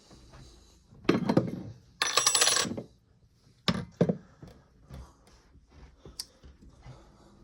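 Small objects being set back on a shelf, clattering and clinking: a clatter about a second in, a ringing clink like a coin or ornament about two seconds in, then a few lighter knocks.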